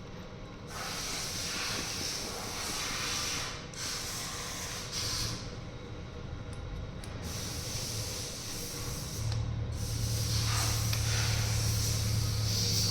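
Compressed air hissing from a blow gun in four long blasts with short pauses, as when blowing out injector parts during an overhaul. A low steady hum joins about halfway through and grows louder near the end.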